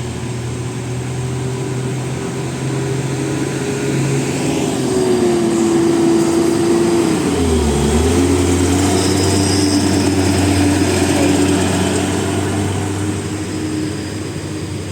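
Heavy road vehicle driving past close by. Its engine hum grows louder toward the middle, its pitch drops as it passes about halfway through, and it eases off slightly near the end.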